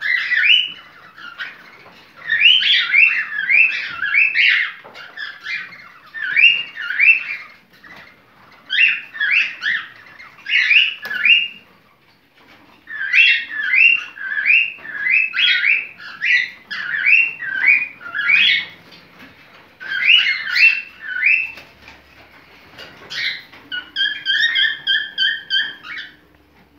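A bird chirping in quick runs of short notes, with short pauses between runs. Near the end, a steady held tone with several pitches sounds for about two seconds.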